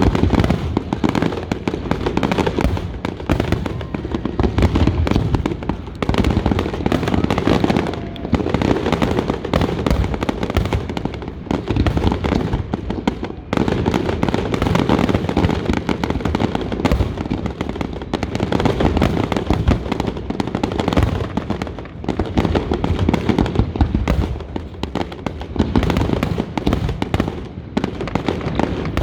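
Fireworks display going off in a rapid, continuous barrage of booms and crackles, with no pause throughout.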